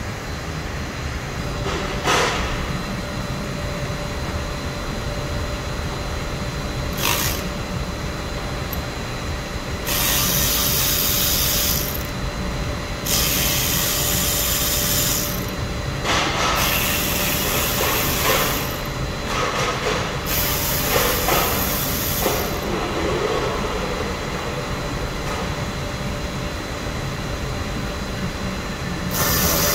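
Cordless power screwdriver with a Torx T25 bit spinning out the four screws along the top of a car's front bumper, in four separate runs of about two seconds each, with a fifth run starting near the end. A couple of single clicks come earlier, over a steady workshop hum.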